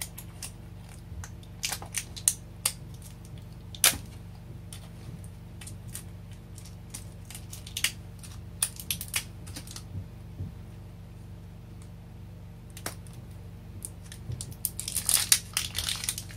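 Fingers picking at a small plastic toy capsule and its wrapper: scattered light clicks and taps, then a stretch of dense plastic crinkling near the end.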